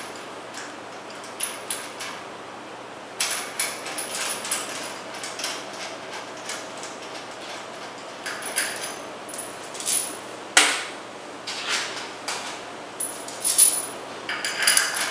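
Steel bolts and washers clinking and knocking against each other and the flange as they are handled by hand, the washer being replaced between boltings. Irregular light metallic clinks, with one sharp knock about two-thirds of the way through.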